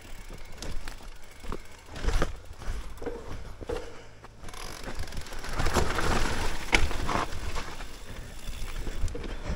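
Mountain bike descending a rough trail: tyres rolling over dirt and rock with irregular knocks and rattles from the bike, a louder rushing stretch around the middle.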